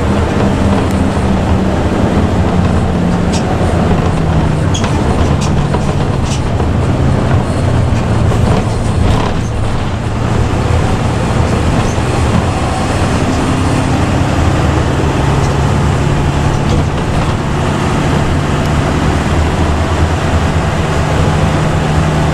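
Bus under way at speed: a steady low engine and exhaust drone over road noise, its pitch dropping slightly a few seconds in, with a few faint clicks.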